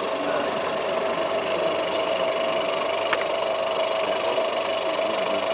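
Twin-belt conveyor's electric drive motor running, a steady hum with a constant mid-pitched whine, and a single click about three seconds in.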